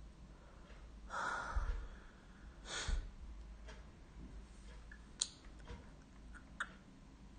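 A woman breathing out close to a phone microphone: a soft sigh-like exhale about a second in and a short puff of breath near three seconds, followed by a couple of faint clicks.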